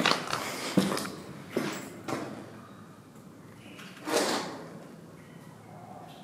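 Several footsteps echoing in a concrete basement, then a louder, longer scuffing sound about four seconds in.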